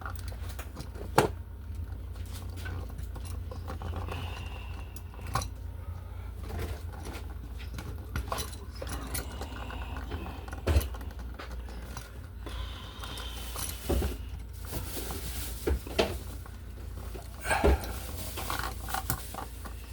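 Scattered small clicks and light metallic knocks from wires, an electrical receptacle and hand tools being handled while the wiring is pushed into a wall box, over a steady low hum.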